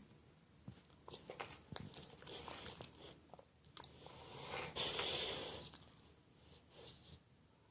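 English bulldog puppy snoring in its sleep: two noisy snoring breaths, the second louder and longer, about five seconds in, with small mouth clicks in between.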